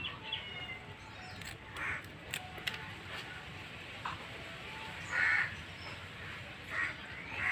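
A bird calling outdoors, four short calls, the loudest about five seconds in, with a few faint snips of kitchen scissors cutting through fish.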